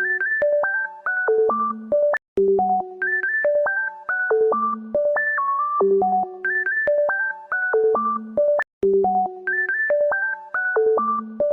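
Electronic synthesizer music: a bright, ringtone-like looping melody of quick stepped notes over a low bass note, the same short phrase repeating every few seconds. It cuts out for an instant twice.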